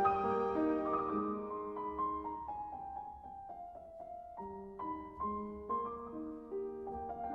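Background music played on piano: single struck notes following one another, a little quieter around the middle.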